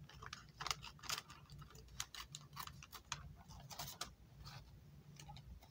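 Scissors snipping through a folded brown paper bag: a run of short, crisp cuts at an uneven pace, a few a second, thinning out near the end.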